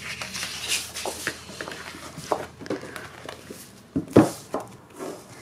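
Large sheets of scrapbook paper rustling and crackling as they are handled and lifted off a cutting mat, with a louder knock about four seconds in.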